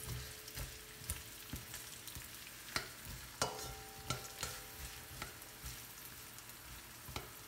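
Diced onion sizzling quietly in hot olive oil in a non-stick wok, stirred with a plastic slotted spatula that taps and scrapes against the pan at irregular moments. The onion is being sweated to soften it.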